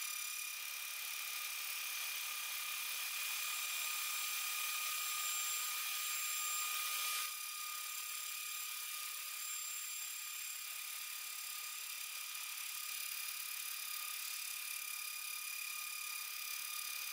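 CNC milling machine spindle whining at a steady high pitch while the cutter mills aluminium alloy, with a hiss of cutting over it. The hiss is louder for about the first seven seconds, then drops suddenly.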